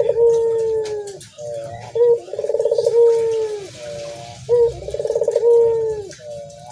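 Ringneck dove (burung puter) cooing: a call repeated about every two and a half seconds, each a fast rolling trill that ends in a long falling coo.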